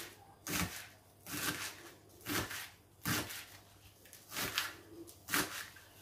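Kitchen knife slicing green onion on a plastic cutting board, a short crisp cut about once a second, six in all.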